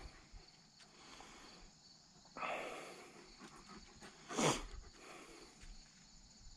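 A person's long exhale, like a sigh, a couple of seconds in, fading over most of a second; about two seconds later comes a brief sharp sound. A faint steady high-pitched hum runs underneath.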